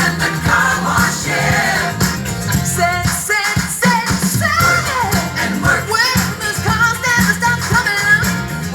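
Funk-pop music with a repeating bass line, a steady beat and singing.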